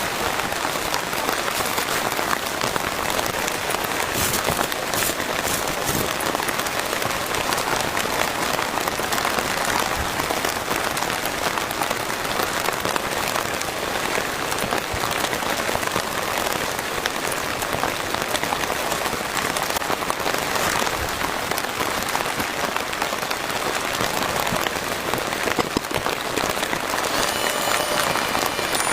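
Heavy rain falling steadily on a pop-up camper trailer's roof: a dense, even patter with a few sharper drop hits.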